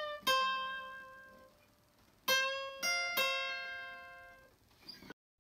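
Guitar played slowly in single plucked notes, each left to ring and fade: one near the start, then three in quick succession a little past the middle. The sound cuts off suddenly near the end.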